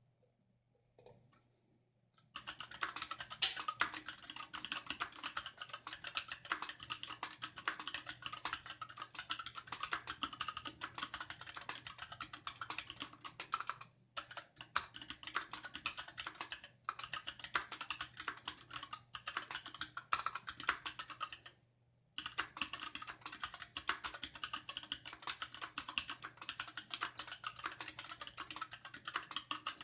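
Fast, continuous typing on a Varmilo VA68M aluminium-case mechanical keyboard with Gateron Red linear switches and dye-sublimated PBT keycaps. It starts about two seconds in and has a few brief pauses.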